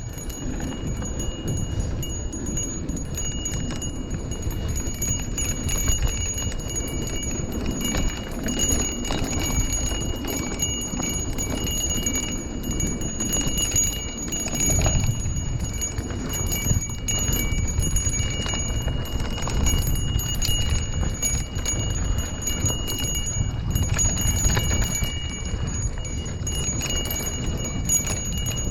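Handlebar bell on a Lime rental ride, rung over and over so that its high ring barely stops, over heavy wind and road rumble.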